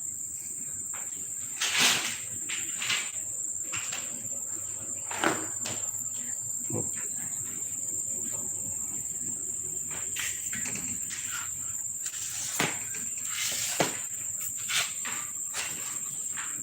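A steady, high-pitched drone of insects, like crickets, with a scattering of short, small knocks and rustles through it.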